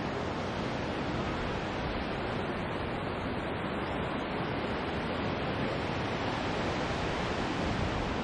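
Steady rush of distant surf breaking on a rocky shore, mixed with wind on the microphone.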